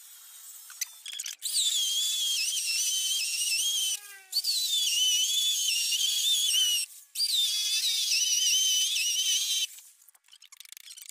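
Handheld corded electric drill boring into a precast concrete handrail: a high motor whine that wavers in pitch as the bit cuts. It runs three times, a couple of seconds each, with short pauses between.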